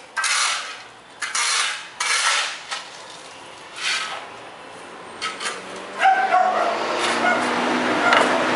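Metal hand tools and sockets clattering in several short bursts. From about six seconds in comes a longer, louder stretch of scraping with a wavering squeal.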